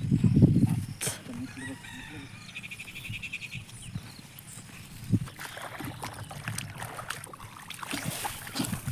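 Chickens calling, with a rooster crowing among them, over a brief low thud and rustle in the first second.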